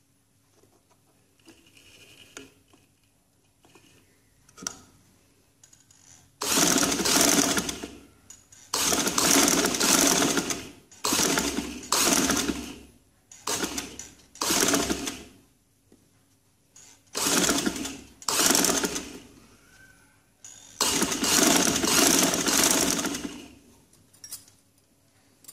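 Sewing machine stitching piping onto a neckline in short runs, starting and stopping about nine times with brief pauses as the fabric is guided between runs. Before the first run there are several seconds of quiet fabric handling.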